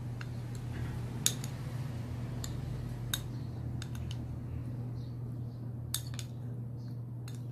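Metal spoon clinking against a small ceramic bowl while scooping food, about six sharp clinks, the loudest about a second in, over a steady low hum.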